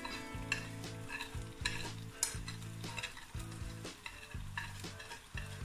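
Minced meat sizzling in oil in a clay pot, with repeated short scraping strokes as a wooden spatula stirs and the spices are added.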